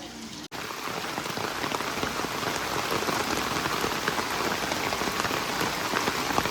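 Monsoon rain falling steadily: a dense patter of many small drops. It starts abruptly about half a second in.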